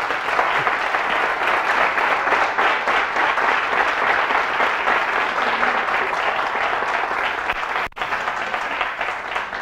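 Audience applauding, a steady wash of clapping with a momentary break near the end.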